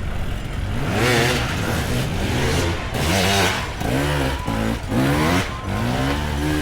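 Dirt bike engine revving in repeated throttle blips, its pitch rising and falling again every second or so.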